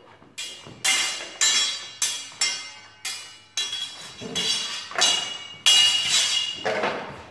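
Steel training swords clashing in a sword-and-buckler bout: a rapid series of about ten sharp, ringing clangs of blade on blade, with a duller knock near the end.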